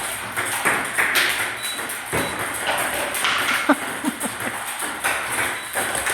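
Table tennis balls clicking repeatedly off paddle and table in quick, irregular succession, a rally against a ball-throwing machine.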